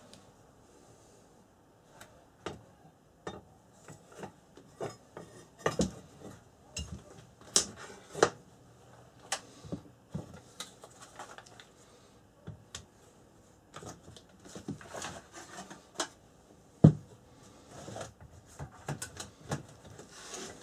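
Irregular metallic clinks and knocks as steel knife blades are handled and set down against metal, with one sharp knock near the end.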